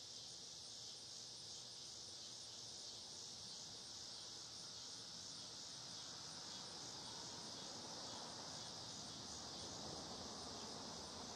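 Faint, steady high-pitched insect chorus, with a low background rumble growing slightly louder in the second half.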